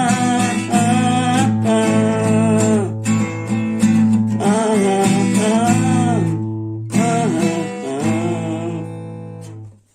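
Closing bars of a song: strummed acoustic guitar chords under a wavering melody line, dying away just before the end.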